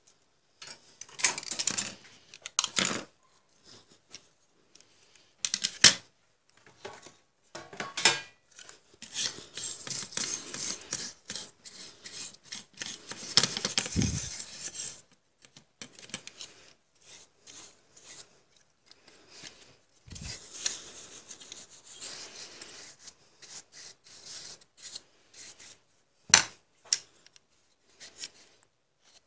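Circuit boards and tools handled on a workbench: irregular rubbing and scraping, with a few sharp clicks and knocks, the loudest about six seconds in and near the end.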